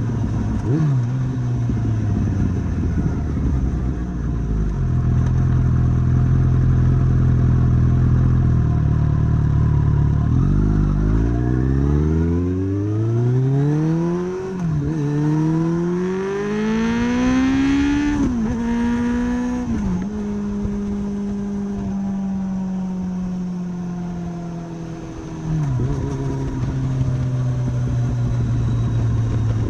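Kawasaki ZX14R inline-four breathing through Danmoto GP dual carbon slip-on mufflers. It runs steadily at low revs at first. About ten seconds in it accelerates hard, the pitch climbing and dropping sharply through three upshifts, then holds a steady cruise with a brief dip in revs near the end.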